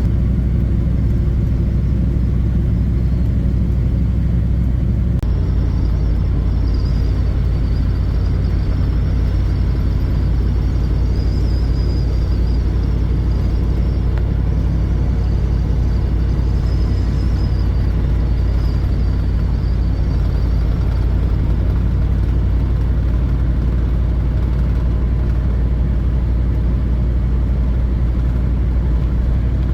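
1985 Chevrolet K5 Blazer with its GM 6.2 diesel driving along, a steady engine and road drone; the engine note changes about five seconds in.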